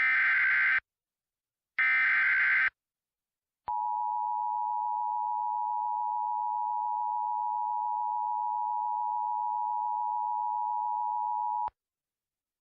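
Emergency Alert System SAME header: two harsh, screeching digital data bursts about a second each, then after a short gap the EAS attention signal, a steady two-tone 853/960 Hz tone held for about eight seconds, a little quieter than the bursts, cutting off sharply.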